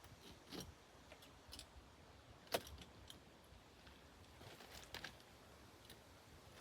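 Faint clicks and light scrapes of hand tools being worked on a window screen frame, with one sharper click about two and a half seconds in and a couple more near five seconds.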